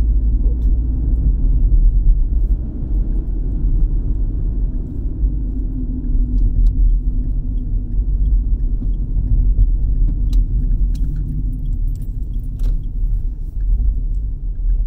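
Car driving, heard from inside the cabin: a steady low rumble of engine and road noise, with a few light clicks and rattles in the second half.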